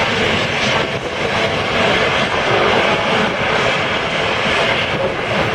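Steady, loud jet engine noise: a continuous rush with a faint whine underneath and no breaks.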